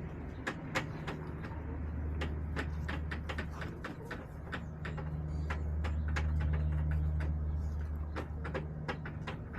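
Many quick, sharp taps from chickens pecking at a hard surface, over a low steady hum that grows louder for a few seconds past the middle.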